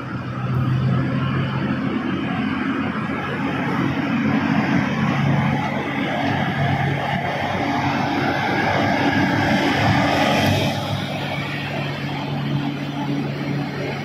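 Diesel engine of a Caterpillar 240-ton mining haul truck running under load as the truck drives slowly, a steady low drone that swells louder a couple of times.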